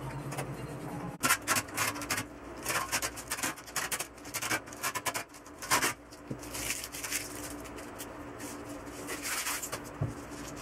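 Hands pulling the adhesive LED backlight strips off an LED TV's sheet-metal back chassis: irregular scraping, rustling and sharp clicks, densest from about a second in to about six seconds, then softer rustling.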